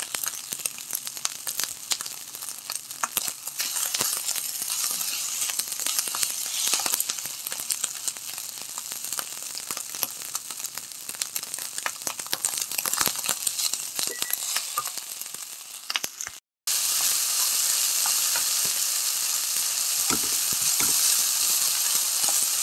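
Crackling, sizzling hiss full of small pops. It cuts out completely for a moment about 16 seconds in, then comes back as a smoother, even hiss.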